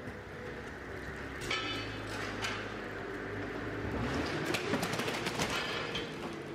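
Forklift engine running, with repeated ringing metal clanks as its steel forks work against the stripped car body.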